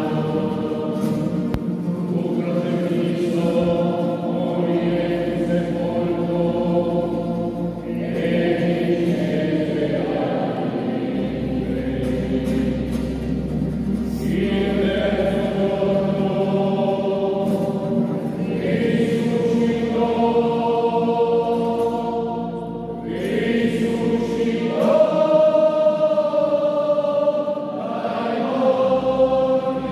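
A small choir singing a slow hymn in long held phrases, several voices together, their notes ringing on in a large stone basilica.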